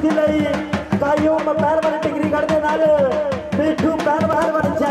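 Dhol drums beaten in a quick, even rhythm, with a sustained melody line carried over the beat.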